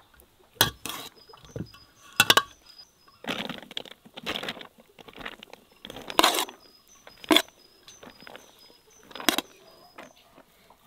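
Perforated metal skimmer clinking sharply against an enamel bowl several times as it scoops cooked rice, between soft rustling patters of the rice dropping into a flatbread-lined pot.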